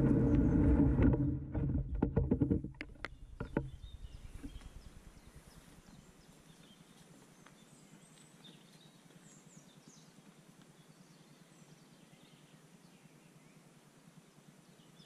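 Loud low rumbling and a quick run of knocks and clicks close to the microphone for about the first three seconds, then faint outdoor quiet with a few thin, distant bird chirps.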